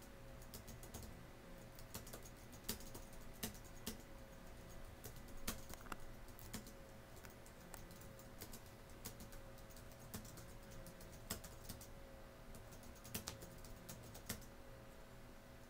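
Irregular light clicks and taps, a few a second and uneven in spacing, over a faint steady hum.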